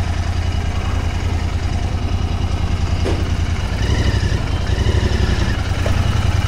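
Royal Enfield Interceptor 650's 648 cc parallel-twin engine running at low revs through its stock exhaust, a steady low-pitched beat that gets a little louder from about four seconds in.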